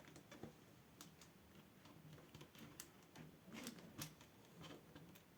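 Faint, irregular small clicks and ticks of a screwdriver and fingers working at the plastic screen bezel of a ThinkPad T14 Gen 2 laptop, prying it loose where double-sided tape still holds it.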